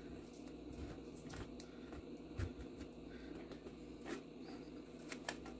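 Faint scraping with a few light clicks as a peeled Asian pear is grated on the fine side of a metal box grater, over a steady low room hum.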